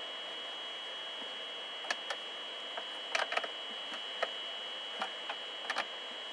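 Scattered small plastic clicks and ticks of a speaker and its screws being fitted by hand into a telehandler's cab roof lining, a dozen or so short sharp clicks in quick clusters, over a steady high-pitched tone.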